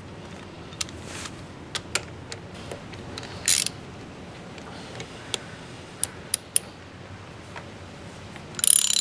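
Scattered sharp metal clicks and ticks from an RK Pro chain rivet tool being worked on a motorcycle drive chain while flaring the master-link rivets. Two louder short scraping bursts come about three and a half seconds in and near the end.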